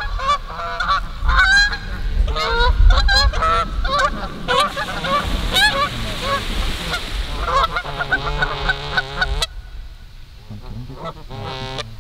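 Flock of Canada geese honking repeatedly as they glide in, with a rush of splashing as they land on the pond about five to seven seconds in. The honking cuts off abruptly about nine and a half seconds in, leaving quieter sound and one more call near the end.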